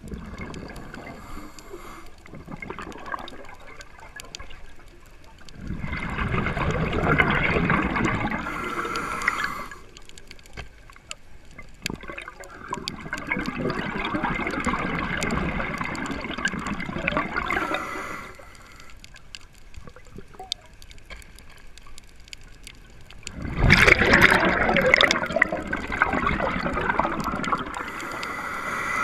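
Scuba diver breathing through a regulator underwater: three long exhalations of rushing, gurgling bubbles, each several seconds long, with quieter pauses for inhaling between them. The last exhalation, near the end, is the loudest.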